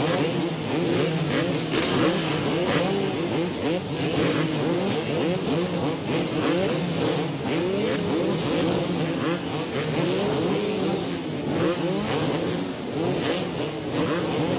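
A pack of motocross bike engines revving together at the start line before a race: many overlapping throttle blips rising and falling in pitch over a steady drone.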